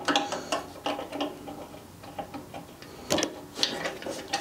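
Small clicks and rattles of plastic clips and wiring connectors being worked by hand on a motorcycle's fuel tank, with a sharper click a little after three seconds in.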